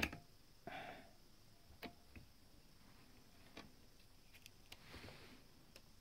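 Faint handling sounds of test leads and thin balance-lead wires: a sharp click at the start, a few scattered light clicks and two soft rustles, with no tester beep.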